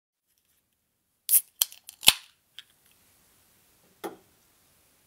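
A quick run of sharp clicks and snaps starting about a second in, the loudest near two seconds, followed by a single duller knock about four seconds in.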